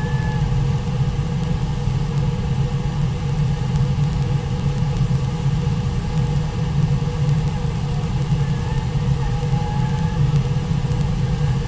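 Steady low rush of fast-flowing river water, unbroken throughout.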